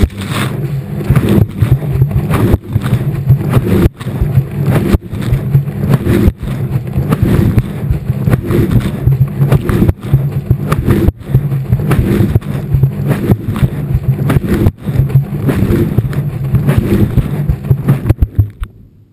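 Washing machine running mid-wash, heard from inside the drum: a steady low motor hum under a repeating slosh of water and clothes as the drum turns. It dies away near the end.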